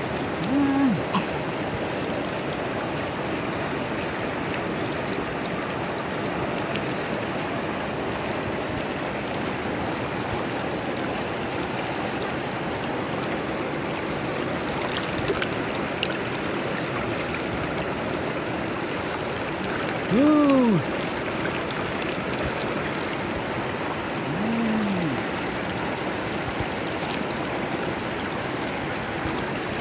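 Shallow river rushing steadily over rocks. Three times a short hum rises and falls in pitch, once at the start, once about two-thirds of the way through and once a few seconds later.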